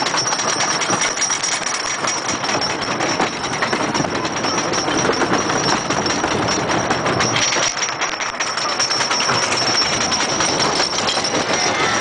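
Wooden roller coaster train running over its track, a loud, steady, rapid rattle of the wheels on the wooden track.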